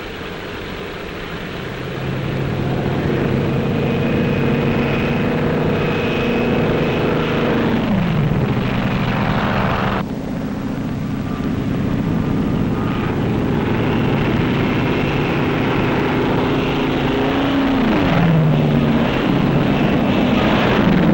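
Piston-engine propeller aircraft flying past with a steady engine drone. The engine note drops in pitch as a plane passes, once about eight seconds in and again near the end.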